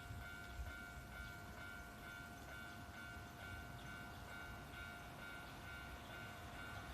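Japanese railway level-crossing warning bell ringing: an electronic ding repeated at a steady pace, a little under two a second, over a low rumble.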